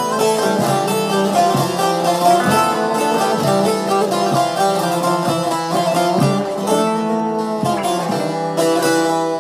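Instrumental break of a Turkish folk song (türkü), played on plucked string instruments, with a held melody line that slides down in pitch near the end.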